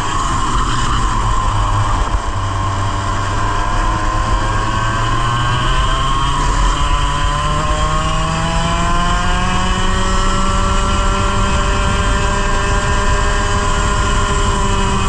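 100cc two-stroke kart engine heard onboard, over heavy wind noise. Its pitch dips at the start and then climbs only slowly for several seconds before levelling off, dropping again near the end. This fits the fault the driver describes: the engine bogs in every corner and has no power until partway down the straight.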